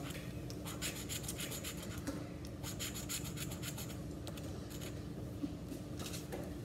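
A coin scraping the latex coating off a paper scratch-off lottery ticket in quick, repeated back-and-forth strokes.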